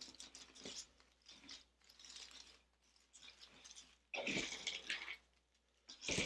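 Artificial leaves and flower picks rustling and crackling against a grapevine wreath as a faux filler pick is pushed into it, in short irregular bursts, the loudest about two thirds of the way through and another sharp one at the very end.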